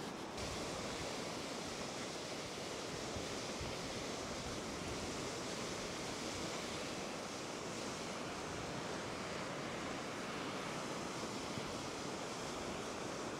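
Lake waves washing ashore: a steady, even rush of surf that cuts in abruptly about half a second in.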